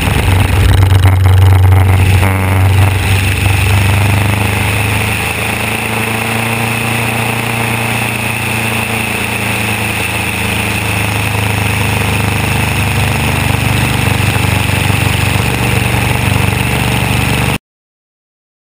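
Fournier light aircraft's piston engine running, with wind rushing over a wing-mounted camera. It is louder for a couple of seconds about one second in, as the plane flick-rolls, then settles to a steady drone and cuts off suddenly near the end.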